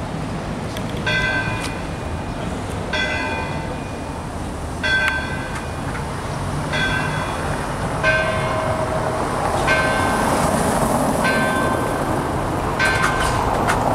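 Church bell struck over and over, about one stroke every one and a half to two seconds, each stroke ringing on, over a steady hum of town noise.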